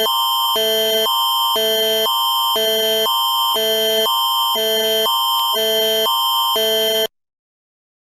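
Canadian Alert Ready emergency attention signal: a loud chord of tones alternating between a higher and a lower pitch every half second, cutting off abruptly about seven seconds in. It is the tone that opens a broadcast emergency alert, here a tornado warning.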